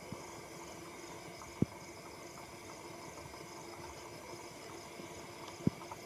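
Insects chirring in a steady, high, pulsing trill over a low steady hum, with two brief soft thumps, one about a second and a half in and one near the end.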